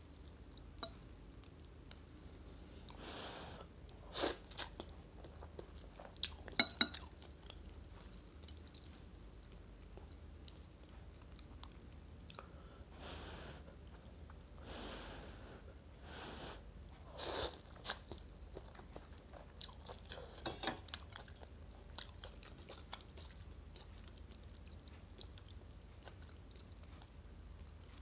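A person eating rice vermicelli noodle soup: quiet chewing, a few short slurps, and scattered sharp clicks of a spoon or fork against the bowl.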